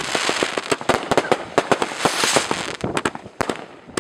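Fireworks going off in quick succession: many sharp bangs and crackles, with a rushing hiss at the start and again about two seconds in.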